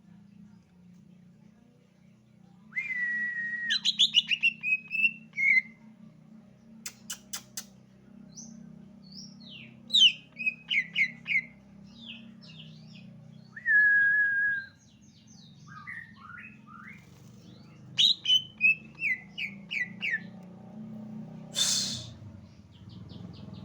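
Cucak ijo (green leafbird) singing in phrases: long steady whistles broken by quick runs of sharp, falling notes. There are a few sharp clicks about seven seconds in and a short noisy burst near the end, over a steady low hum.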